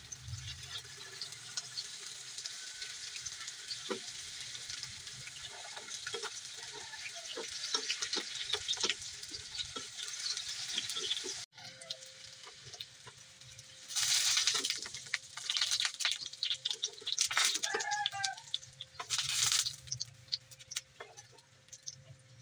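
Tofu blocks shallow-frying in hot oil in a nonstick pan: a steady sizzle with light clicks of a plastic spatula. About halfway it cuts to quieter frying, with a few short louder bursts of sizzle and scraping as the golden-brown pieces are lifted out.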